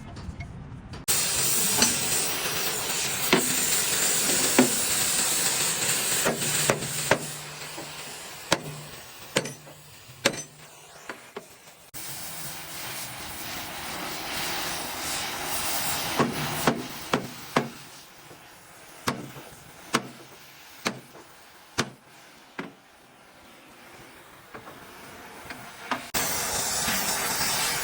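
Irregular sharp hammer strikes, roughly one a second, typical of panel-beating on truck metalwork, over a steady hiss. The hiss fades about halfway through and comes back near the end.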